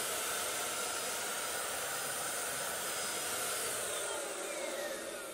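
HomeRight Super Finish Max handheld electric HVLP paint sprayer running, its fan motor giving a steady rushing whine like a hair dryer. Near the end the motor winds down, the whine falling in pitch as the sound fades.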